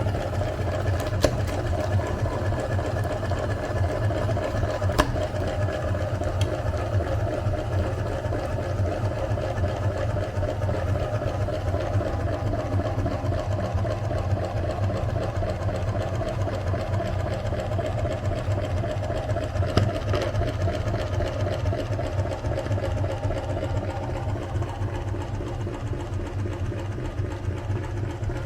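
Electric meat grinder running steadily, its motor humming, with a few sharp clicks as it works.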